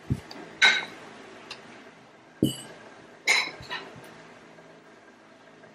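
A spoon clinking and knocking against a metal mixing bowl while cookie dough is scooped out: about half a dozen sharp clinks in the first four seconds, one with a brief metallic ring.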